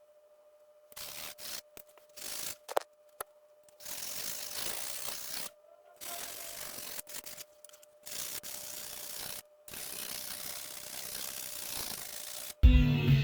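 A hatchet blade scraping across a whetstone in repeated gritty strokes, each one to three seconds long with short pauses between, and a sharp click about three seconds in. Loud guitar music cuts in near the end.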